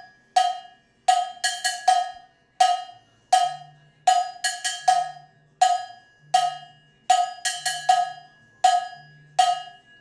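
Handmade standard cha-cha cowbell, held in the hand and struck with a wooden drumstick in a repeating timbale-style rhythm: quick runs of four strokes alternating with single strokes. Each stroke gives a bright metallic clank that rings briefly and dies away.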